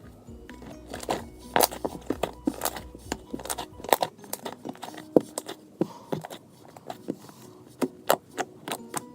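Slime being handled and squished, giving off irregular sharp clicks and pops.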